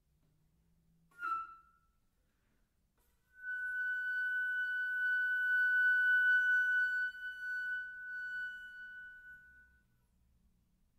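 Solo concert flute: a short accented note about a second in, then a long high note held for about six seconds that swells and then fades away, closing the piece.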